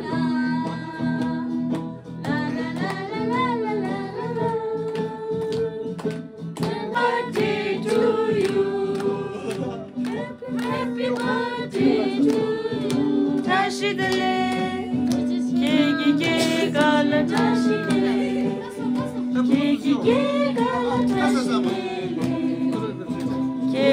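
A recorded birthday song playing: a voice singing over instrumental backing, with a steady low note held underneath.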